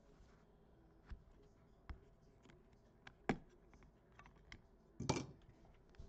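Trading cards and clear plastic card holders handled by hand: a few light clicks and taps, a sharper click a little past three seconds in, and a short, louder plastic scrape about five seconds in.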